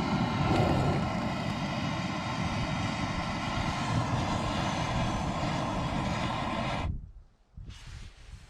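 A steady engine-like drone with a fixed hum, cutting off abruptly about seven seconds in.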